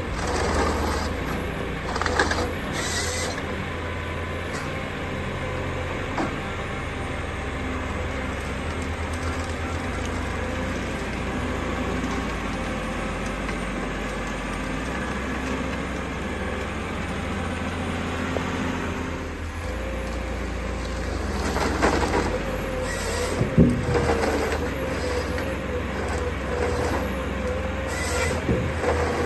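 Heavy wood-processing machinery running: a steady engine drone with a wavering whine, broken by a few sharp knocks and crunches, clustered about three-quarters of the way through.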